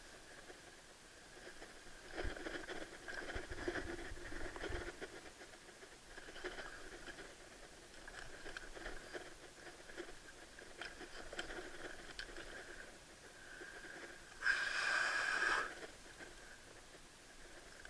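Faint scuffing and tapping as a large caught cod is handled on the floor of a small boat with gloved hands, with one louder rough rustle lasting about a second late on.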